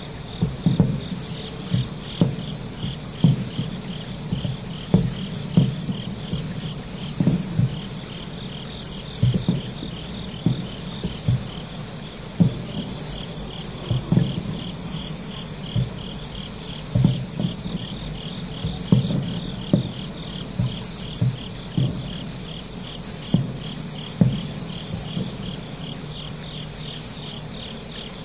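Distant fireworks shells bursting about 3 km away, heard as dull low booms every second or two, some in quick pairs. Over them runs a steady chorus of night insects: a continuous high trill and a higher chirp repeating about every second and a half.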